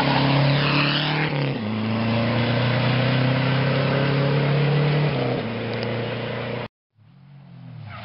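Rally car engine under hard throttle, with a gear change about a second in, then held at a steady pitch before easing off about five seconds in. The sound cuts out for a moment near the end, and another rally car is heard approaching.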